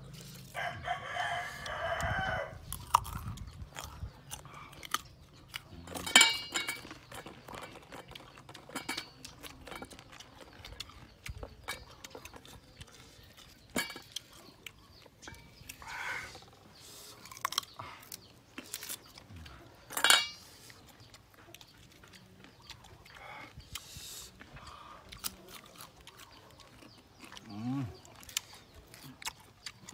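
Chickens clucking and a rooster crowing, with a long call about a second in and two loud calls later on. Under them come scattered clicks and squelches of ambarella pieces being mixed by hand with chili salt in a stone mortar.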